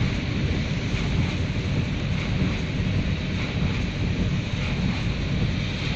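Steady road noise inside a moving car's cabin: a low rumble with tyre hiss from a rain-wet road.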